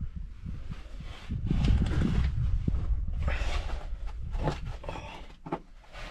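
Scuffing footsteps and scraping on rock and loose dirt as a person scrambles through a narrow cave passage, with a few sharper knocks about four and a half and five and a half seconds in. A low rumble of handling on the microphone runs underneath.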